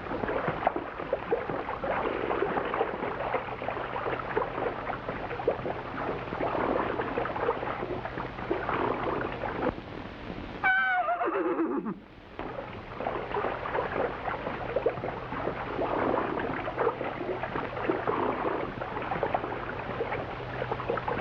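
A wild stallion splashing through a stream, a steady rush of churned water, with one long whinny that falls steeply in pitch about eleven seconds in.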